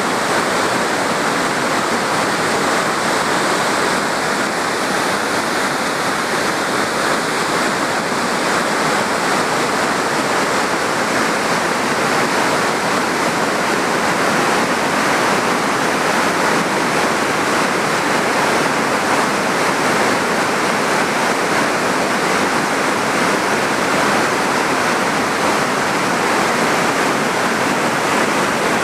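River water rushing at a lock and dam, a loud, steady, unbroken rush of water.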